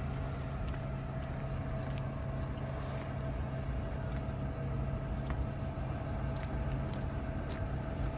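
Steady street noise: a low vehicle engine hum with a faint steady whine above it and a few light clicks.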